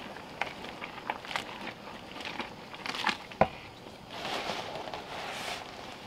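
Wooden paddle stirring bran mash for pig feed in a large aluminium pot over a wood fire: scattered clicks and knocks, one sharp knock about three and a half seconds in, then a rushing swish for about a second and a half.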